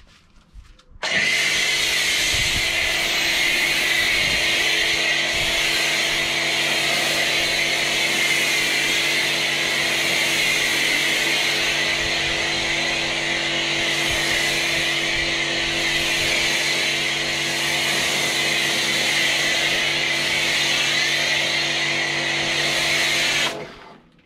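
Pressure washer running with its motor and pump humming steadily while an Autoglym Polar Blaster snow foam lance hisses out a spray of foam. It starts about a second in and stops abruptly near the end when the trigger is released.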